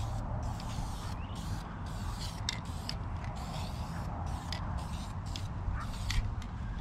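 Aerosol can of vinyl dye spraying in short hissing bursts, broken by brief pauses, as a car door-panel pull is given another coat. A steady low rumble runs underneath.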